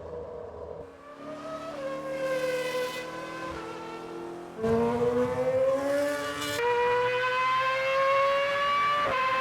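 Red Bull RB7 Formula 1 car's high-revving Renault V8 engine, a high, steady, siren-like whine that climbs slowly in pitch. The sound jumps abruptly in pitch and loudness several times between shots, about a second in, near the middle, past six seconds and near the end.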